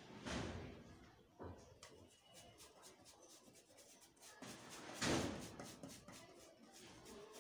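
Close rustling and bumping handling noise: a short surge right at the start and a louder one about five seconds in, with faint light clicks in between.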